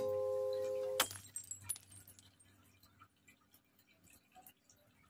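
A bell-like chord of background music rings on and is cut off by a sharp click about a second in, then only faint scattered clicks remain.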